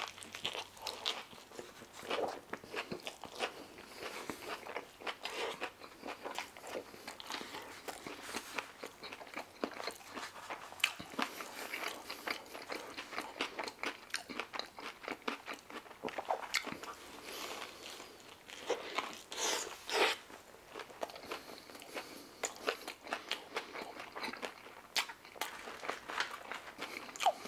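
A person biting and chewing a falafel wrap close to the microphone: a steady run of short, irregular crunching and mouth sounds.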